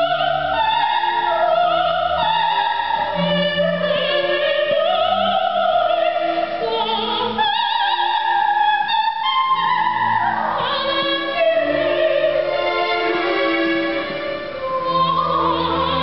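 Operatic soprano singing with a wavering vibrato, accompanied by an ensemble of cellos and double basses playing sustained bowed notes.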